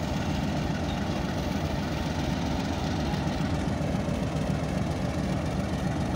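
Pakistan Railways HBU-20 diesel locomotive's engine idling with a steady low rumble.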